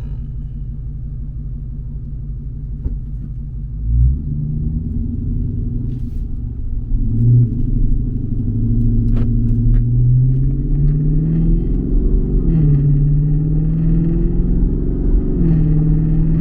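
Dodge Charger's Hemi V8 engine running while driving. About four seconds in it gets louder as the car accelerates, and later its pitch rises and falls in steps.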